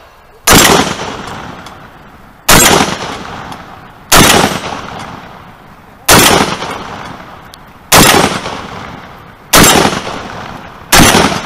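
A shotgun fired seven times at a steady pace, a shot every one and a half to two seconds. Each loud blast trails off into a long fading tail.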